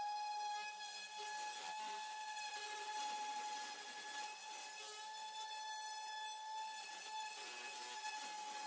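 Electric random orbital sander running with a steady whine, its pad rubbing over the rusty steel blade of an old hand saw to take off the rust.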